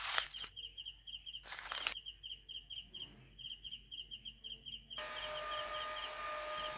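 Crickets chirping in short, evenly repeated trills. About five seconds in, a small DC motor starts a steady whine as the toy crane's winch begins winding in the string.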